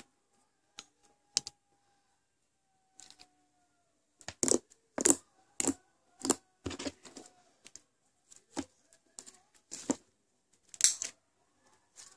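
Foam bead slime being stretched and squeezed by hand: irregular clicks and pops from the slime and beads, thickest about four to seven seconds in and again near the end.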